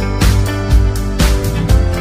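Background music: an upbeat track with a steady beat and guitar.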